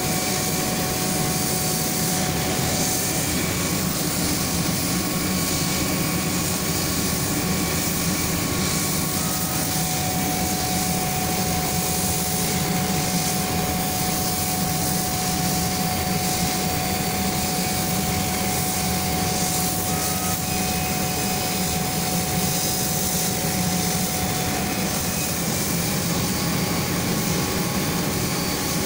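Dual-head laser cutting machine running steadily: a constant whir and hiss with a hum and a thin, steady whine as its laser heads move across the sheet.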